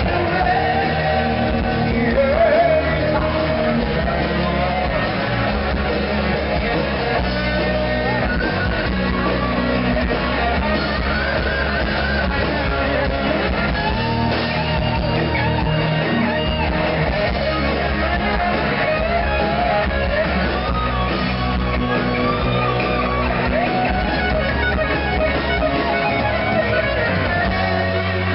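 Live rock band playing: a sung lead vocal over electric guitars, bass and drums, heard from among the audience.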